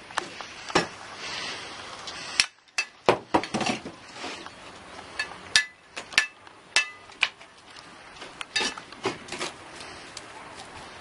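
Steel bricklaying trowel scraping mortar and tapping bricks into place: a string of irregular sharp clinks and taps with scraping between them.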